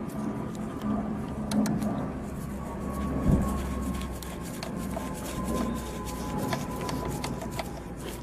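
Scattered metallic clicks and ticks of a ratchet wrench tightening a 10 mm bolt on a hose mount. There is a louder knock about three seconds in.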